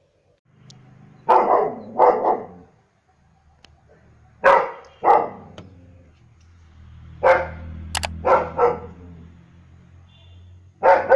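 German shepherd barking in groups of two or three sharp barks, a new group about every three seconds.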